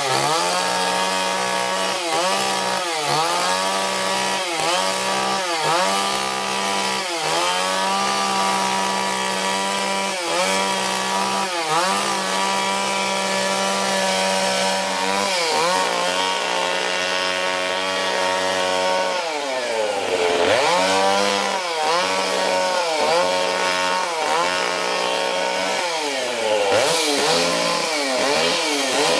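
Gas chainsaw cutting tree limbs, its engine pitch dropping and recovering over and over, about once a second, as it bites into the wood. It holds a steady high pitch for several seconds in the middle and drops almost to idle about twenty seconds in before revving up again.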